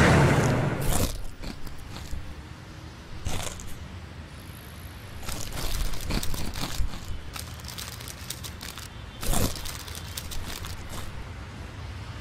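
A passing motorhome's noise fades out in the first second, then popcorn is crunched and rustled, in irregular short spells of crackling.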